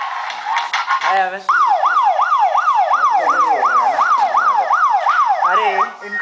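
Yelping siren sound effect in a dance-music mix: a loud tone sweeping up and down about three times a second, starting about a second and a half in and stopping just before the end, after a short stretch of chopped music.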